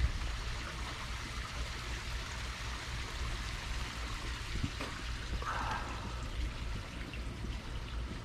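Koi pond water running and trickling steadily, over a low steady hum.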